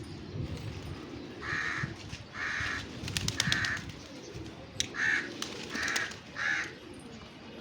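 A crow cawing: six harsh caws in two runs of three, a second or so apart between runs. A few sharp clicks fall among the first run.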